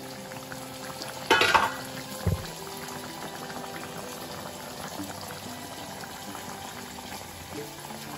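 Rohu fish curry bubbling at a steady simmer in an open kadai. A loud brief clatter comes a little over a second in, followed by a short thump about a second later.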